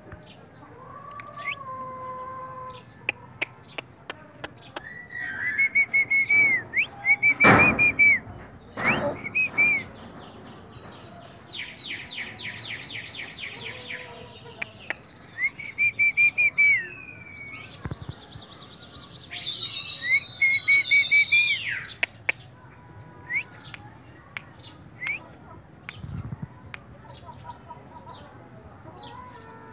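Small birds chirping in bursts of short high whistled notes, repeated phrases and a fast trill. Two loud broad sounds come about seven and nine seconds in.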